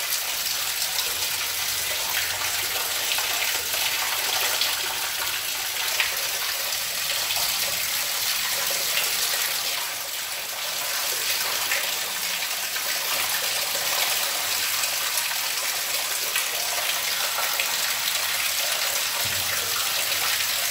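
Water spilling from a crack in the rock wall of a mine tunnel, a steady splashing stream.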